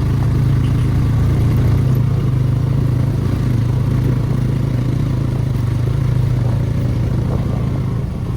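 Motorcycle engine running steadily at a constant low hum while riding along a rough track.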